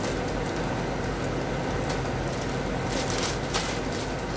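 A steady low hum of room machinery, with faint crinkles and ticks of a plastic grow bag being slit open with a craft knife and pulled apart, a little louder about three seconds in.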